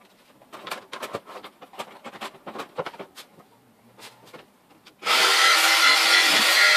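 A few light clicks and knocks of handling, then about five seconds in an electric jigsaw starts and cuts into a panel with a loud, steady buzz.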